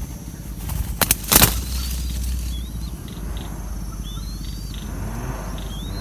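A few loud wing claps about a second in as a young spotted dove takes off from the nest. Several short, high, sliding chirps from a small bird follow.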